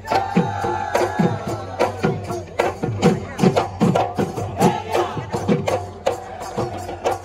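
Assamese Bihu folk music: dhol drum strokes that fall in pitch, beaten in a quick rhythm with sharp clicks between them, under a held melody line.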